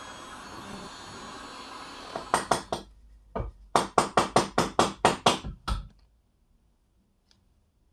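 Heat gun blowing steadily for about two seconds. Then about a dozen sharp knocks, roughly three a second, as a ball bearing is seated into the heat-expanded steel bearing housing.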